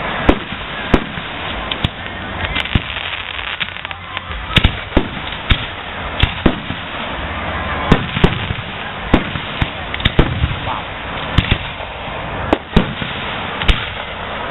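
Aerial firework shells bursting in an irregular rapid series of sharp bangs, sometimes several in quick succession, over a steady background hiss.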